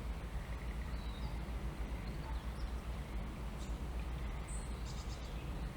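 Steady low rumble of outdoor background noise, with a few faint, brief bird chirps.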